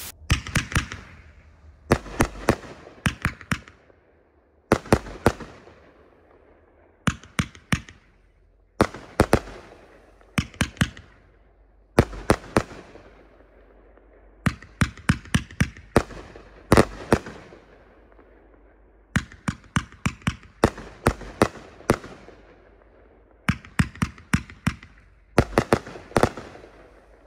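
Stinger 'Alpha' 27-shot firework cake firing: clusters of several sharp bangs in quick succession, repeating about every two seconds, each volley trailing off before the next.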